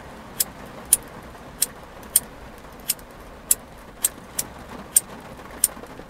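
Repeated strikes of a Bic lighter's flint wheel, about ten sharp clicks roughly every half second. The lighter is out of gas, with a second dead lighter's gas lever held down beside it, and the strikes do not reliably light it.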